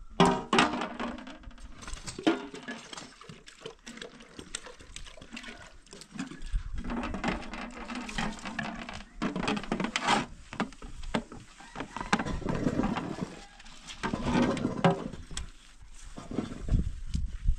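Water being poured and splashed in a large metal basin as it is rinsed by hand, with irregular knocks and clinks of the metal.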